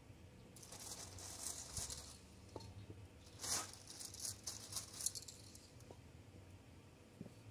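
Spray paint cans rattling and a plastic shopping bag rustling as the cans are handled, in two spells, the louder one around the middle, followed by a few light taps as cans are set down.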